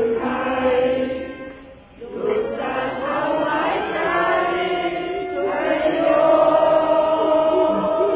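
Several voices chanting together in long held notes, breaking off briefly about two seconds in and then swelling into fuller sustained tones.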